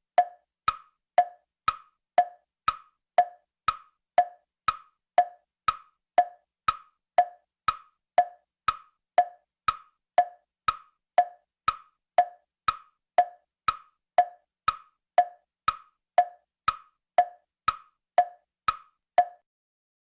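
Tick-tock sound effect: sharp wood-block-like clicks about two a second, alternating between a higher 'tick' and a lower 'tock', stopping shortly before the end.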